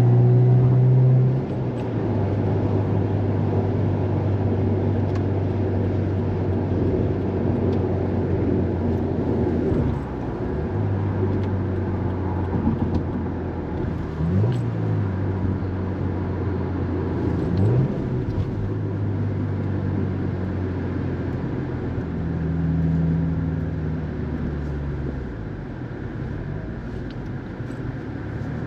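Subaru WRX STI's turbocharged flat-four engine heard from inside the cabin, running at a steady drone while driving. The note drops a little early on and dips again about ten seconds in, and a few short rising revs come later.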